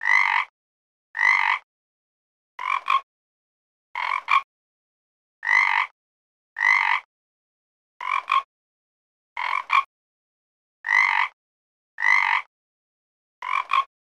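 A frog croaking over and over: one short call about every second and a half, some ending in a quick double note, with silence in the gaps.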